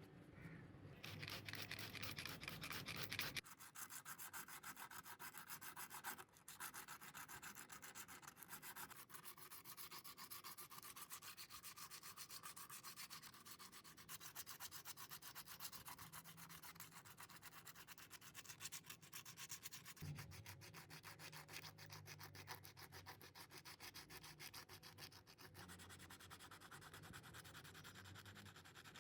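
Sanding by hand: quick, even rubbing strokes on a surface, fairly faint, a little louder in the first few seconds.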